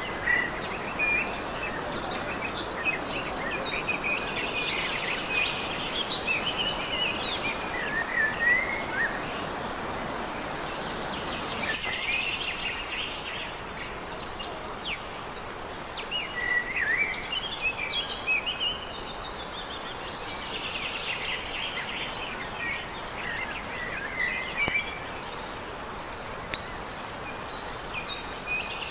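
A songbird singing in repeated bouts of quick, chattering phrases, over the steady rush of a mountain valley stream.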